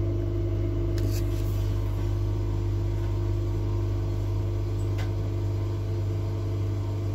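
Steady low hum of a railway passenger car's onboard equipment in a small toilet compartment, with two faint clicks about one and five seconds in.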